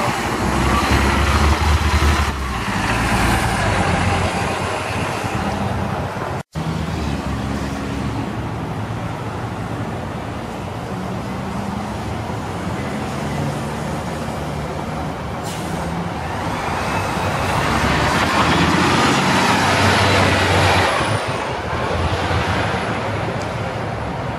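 Diesel city buses running in street traffic. A bus's engine works hard as it pulls away. After a break, another bus builds up and passes with a high whine, then fades.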